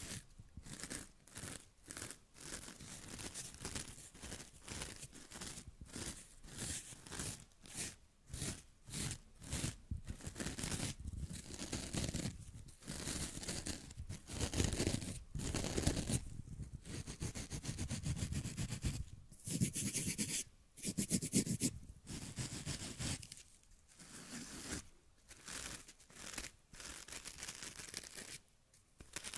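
Fingertips scratching and rubbing the fuzzy fabric face of a foam pad held right at a condenser microphone. The strokes come about two a second at first, then grow denser and louder through the middle, with a few short pauses.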